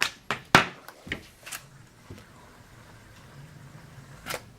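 A handful of short clicks and knocks in quick succession, then a pause and one more knock near the end.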